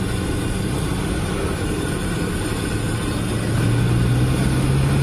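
Street traffic noise over the steady hiss of a large wok of deep-frying oil; about three and a half seconds in, an engine's low tone swells louder and rises slightly in pitch as a vehicle passes close by.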